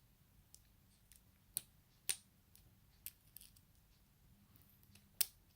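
Light, scattered metallic clicks and taps, about half a dozen with the sharpest near the end, as a small tool and the lock's brass and steel pins and springs knock against the lock while it is taken apart.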